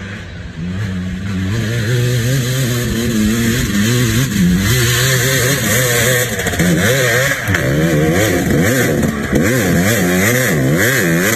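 Two-stroke dirt bike engine revving hard on a steep rocky climb, growing louder over the first couple of seconds as the bike comes closer. From about the middle on, the pitch swings rapidly up and down as the rider works the throttle.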